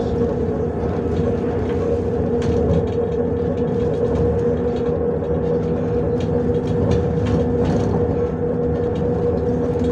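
Inside a MAZ 105 articulated city bus under way: steady engine and drivetrain drone with a constant whine, no change in pitch, and scattered clicks and rattles from the body.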